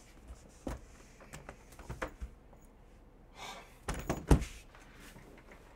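Aluminium Panini Flawless case being handled on a table: a few scattered clicks and a brief rustle, then a cluster of knocks ending in a loud thunk about four seconds in as the case is set down upright.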